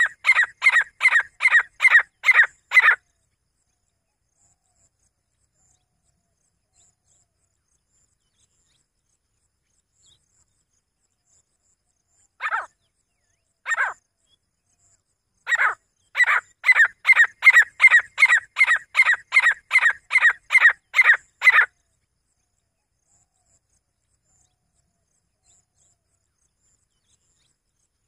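Grey francolin calling: a fast run of short, sharp, evenly spaced notes, about three a second, that stops about three seconds in. After a long silence come two single notes, then a second run of about fifteen notes that ends about two-thirds of the way through.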